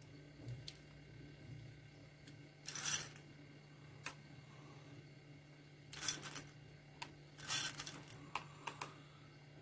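Chocolate chips rattling and clicking in a paper cupcake liner as they are picked out by hand, with paper rustling, in several short bursts. A low steady hum runs underneath.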